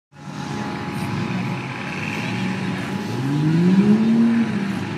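Pickup truck engine working hard in a mud bog pit. It revs up with a rising pitch about three seconds in, peaks, then drops away shortly before the end.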